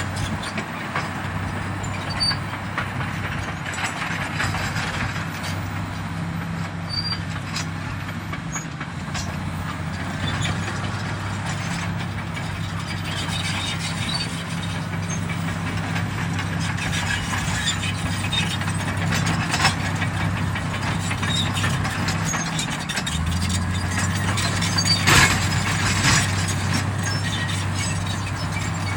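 Komatsu D85EX crawler bulldozer working: its diesel engine runs steadily, with scattered metallic clanks from the tracks and blade. The engine note shifts about three-quarters of the way through, and a sharp clank comes soon after.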